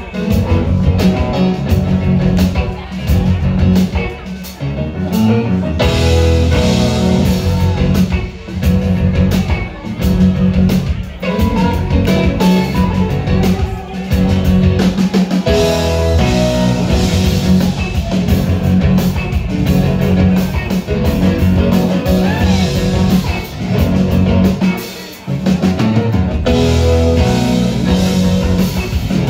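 Live rock band playing: electric guitar, keyboards and drum kit, heard from the audience.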